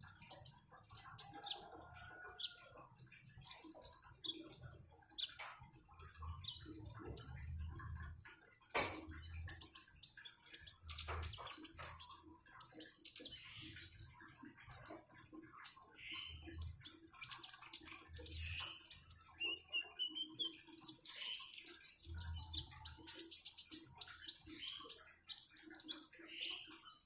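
A konin songbird calling with many short, sharp high chirps and quick rapid-fire trills, over low muffled bursts and splashing water.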